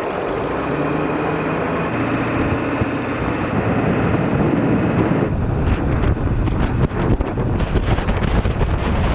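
Wind rushing and buffeting against a microphone held out the side window of a moving vehicle, over engine and tyre noise on a snowy road. The buffeting and low rumble grow heavier about five seconds in.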